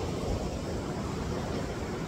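Ocean surf washing on a beach in a steady rush, with wind on the microphone.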